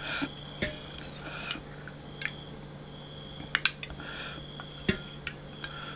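A metal spoon clinking against a steel bowl of chicken curry as curry is spooned out: a handful of short, sharp clinks, the loudest two in quick succession about three and a half seconds in.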